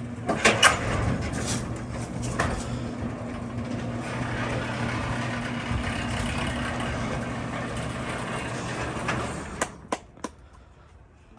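Electric garage door opener running as the door goes up: a steady motor hum over the rumble of the moving door for about nine seconds, then it stops, followed by a couple of sharp knocks.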